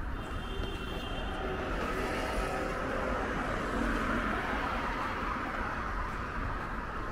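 Road traffic noise, a car passing on the road alongside, swelling about halfway through.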